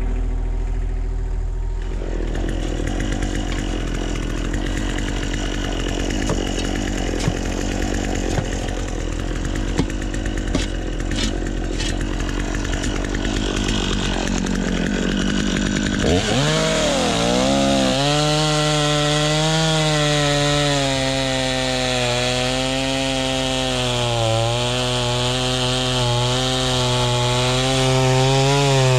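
Chainsaw running and cutting into a tree stump. About halfway through, its engine speeds up and holds a high, wavering pitch as it cuts.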